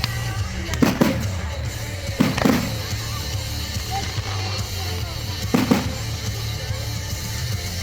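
Fireworks going off: three heavy booms with a short rumbling tail, about a second in, past two seconds, and near six seconds, among smaller crackling pops.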